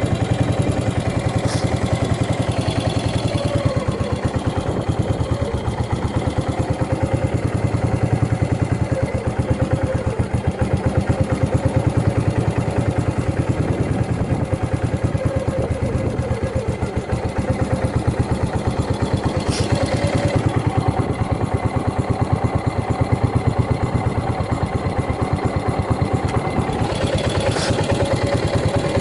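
Yamaha SR400's air-cooled single-cylinder four-stroke engine idling steadily with an even, regular beat. It runs cleanly, with no abnormal noises.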